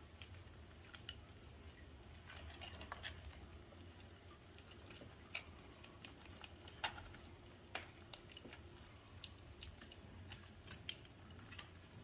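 Several pet hamsters eating in a litter of seed mix and wood shavings: faint, irregular small clicks and crackles of seeds being nibbled and husks and bedding being shuffled, over a steady low hum.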